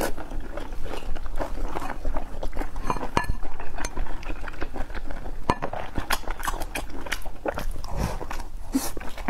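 Close-miked chewing and eating of steamed rice and braised pork skin: irregular wet mouth clicks and smacks.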